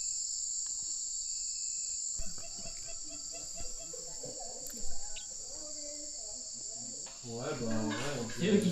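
Steady, high-pitched chorus of jungle insects, a dense unbroken buzzing trill. From about two seconds in, voices talk faintly underneath, growing louder near the end.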